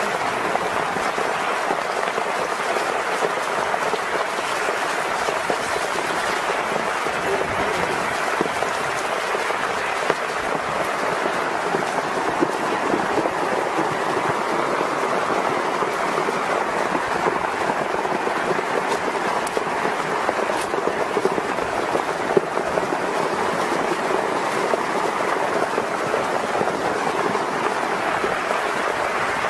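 Steady rush of running floodwater, an even hiss-like roar that neither swells nor breaks.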